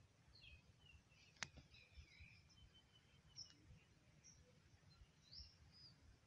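Near silence with faint, scattered bird chirps and one sharp click about a second and a half in.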